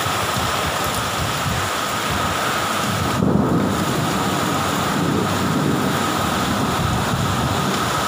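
Heavy tropical downpour with strong gusty wind, the gusts buffeting the microphone, the strongest about three seconds in.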